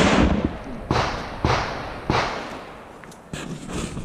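Revolver shots from a Smith & Wesson 325 Thunder Ranch .45 ACP: four sharp reports about half a second to a second apart, each ringing out, then a fainter report near the end.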